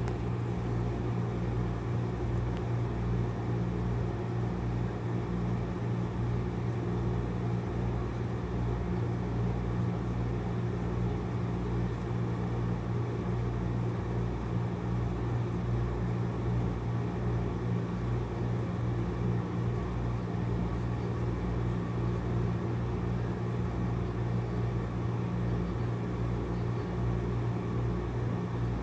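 Grey tabby cat purring steadily close to the microphone, a low rumble that pulses with its breathing about once a second.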